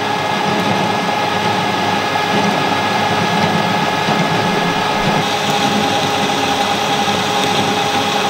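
Harrison M300 metal lathe running at 540 RPM while a Glanze indexable carbide turning tool takes a cut along a mild steel shaft: a steady machine noise with a high tone held through the cut.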